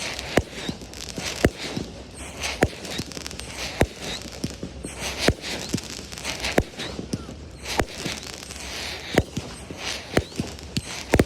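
Fireworks going off: sharp bangs about once a second, with smaller pops and a crackling hiss between them.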